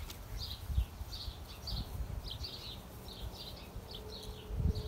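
Insects chirping in a steady repeating pulse, about three short high chirps a second, with low thumps and rumbles underneath.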